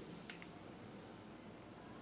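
Quiet room tone, with a couple of faint clicks of the hand brace being handled about a third of a second in.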